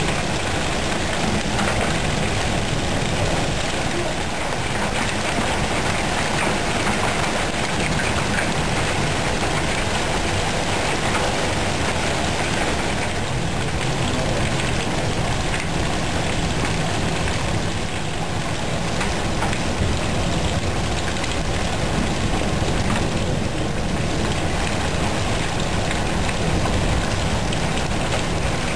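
Hail falling steadily: a dense, continuous hiss of countless small hits, unchanging throughout.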